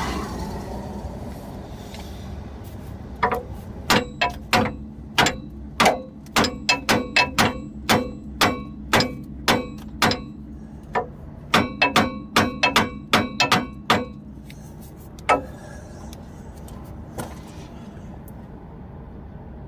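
Hammer blows on a steel tie rod end, some two dozen sharp ringing strikes at about two a second, then a pause and one or two last blows. The tie rod is stuck and is being knocked loose.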